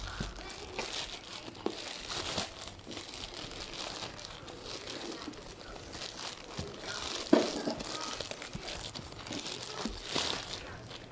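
Plastic courier mailer bag crinkling and crumpling as hands pull it open, with one louder, sharper crackle about seven seconds in.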